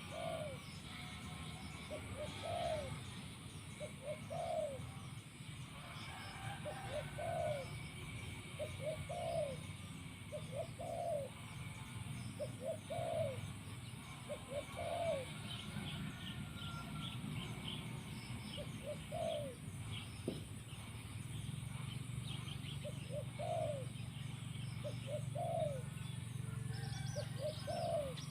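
Spotted dove cooing over and over, each call a few short notes followed by a longer rising-and-falling coo, repeated about every two seconds.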